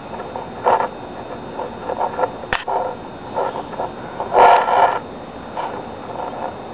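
Common nighthawk calling: a few short calls, the loudest and longest about four and a half seconds in. A sharp click is heard about two and a half seconds in.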